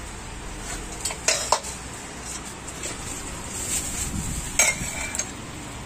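Stainless-steel pots, bowls and a spoon clinking and knocking while gupchup potato masala is mixed by hand. A scatter of sharp metal clinks, one about four and a half seconds in ringing briefly.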